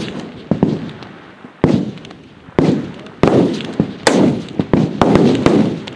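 Rifle shots from F-Class competitors firing on a long-range line: about nine sharp reports at irregular intervals, some close together, each trailing off in a rolling echo.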